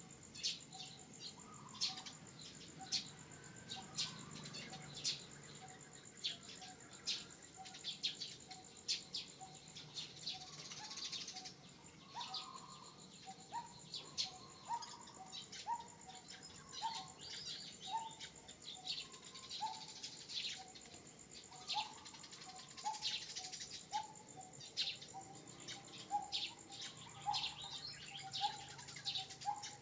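Birds chirping and calling over a steady high insect drone. From about halfway through, a short call repeats roughly once a second.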